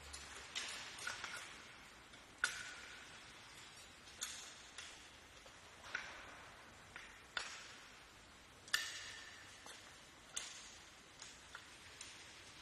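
Sharp metal clinks and taps, about a dozen spread irregularly, some with a brief ring: steel bracket plates and a roller frame knocking against the floor jack's steel frame as they are shifted into place.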